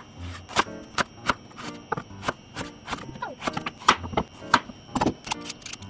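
Kitchen knife slicing daikon radish and then carrot on a wooden cutting board: a quick, irregular run of sharp knocks as the blade hits the board.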